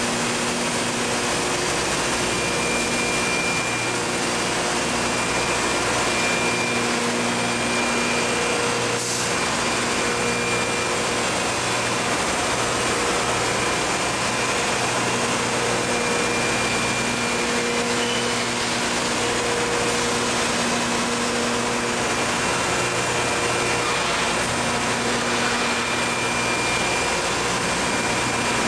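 Dry ice production machinery running steadily: a loud, even hiss with a humming tone that swells and fades at intervals.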